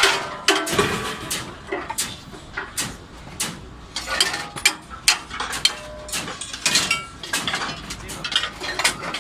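Aluminium formwork panels being handled and knocked together: irregular metallic clanks and knocks, several a second, some ringing briefly.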